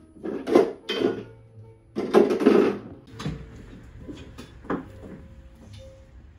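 Several short knocks, with a longer scraping or rustling sound about two seconds in, over quiet background music.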